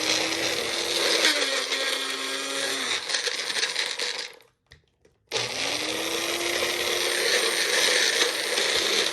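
Electric blender running on ginger pieces, its motor spinning up and then running steadily with a dip in pitch as it works through the load. About four seconds in it stops for about a second, then spins up again and keeps running.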